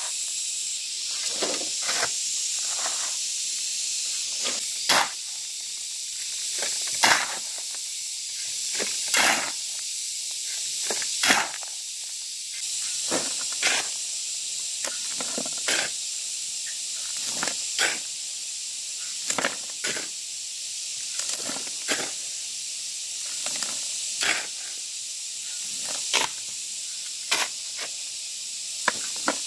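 A hand tool strikes or scrapes, short and sharp, about once every two seconds, over a steady high hiss.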